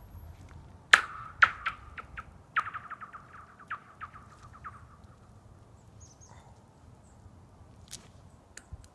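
A rock striking thin ice: each hit rings through the ice as a high, falling 'laser' pew. There are three loud strikes in the first two seconds, then a quick run of smaller hits that comes faster and fades out after about two more seconds.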